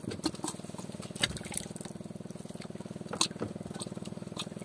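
A small engine running steadily at an even, fast-pulsing idle, with a scattering of sharp clicks and knocks from handling fishing gear on the boat.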